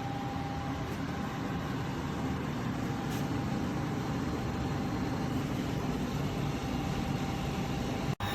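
KGOGO 4-in-1 portable air conditioner running with a steady low hum and a faint, steady high tone. The sound drops out for an instant near the end.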